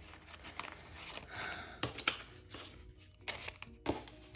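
Paper banknotes rustling and snapping as a small stack of bills is handled and flipped through by hand, with one sharper crisp snap about two seconds in.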